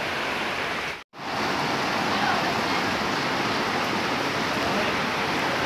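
Steady rushing of rain and flowing floodwater. It breaks off for a moment about a second in.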